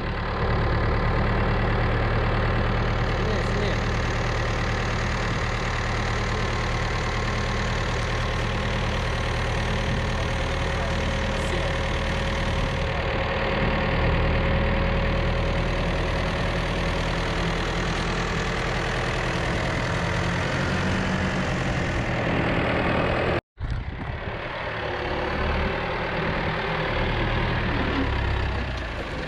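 Tractor engine running steadily at a low, even speed. The sound cuts out for an instant about four-fifths of the way through, then the same engine resumes.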